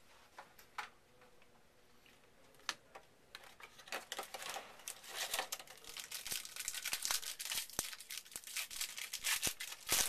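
A trading-card pack wrapper being torn open and crinkled by hand: a few separate clicks, then from about three or four seconds in a dense run of crackles and sharp snaps that grows busier toward the end.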